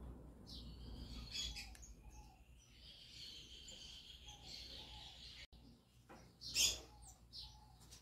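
Parakeets chirping and warbling faintly, with one longer call in the middle and a louder short sound a little past six seconds in.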